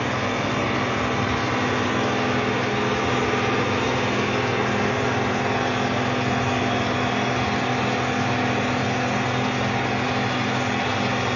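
Caterpillar 320C excavator's diesel engine running steadily, with a constant rushing hiss over the engine note, while the machine smokes heavily from its engine compartment.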